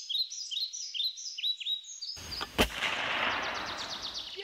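Songbird chirping, a quick falling chirp several times a second. About two seconds in, a sudden rush of noise and one sharp crack like a gunshot, fading away over about two seconds, with birds still trilling faintly over it.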